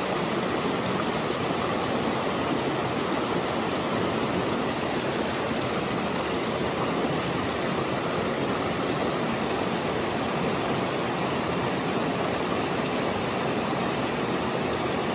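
A small rocky stream running over stones in shallow riffles, a steady rush of water.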